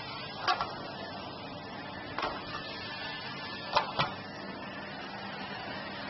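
Vacuum cleaner running steadily as its floor head is pushed over carpet, a constant hum and hiss. Four short, sharp sounds cut across it: one about half a second in, one around two seconds, and two close together near four seconds.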